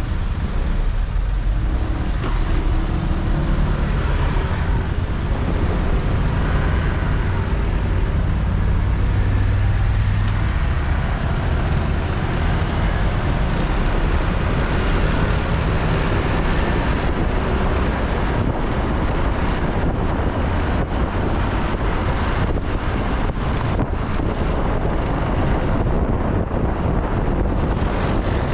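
Car driving through city traffic: steady engine and road rumble with a low engine hum. From about two-thirds of the way through, a series of short knocks or bumps sounds over it.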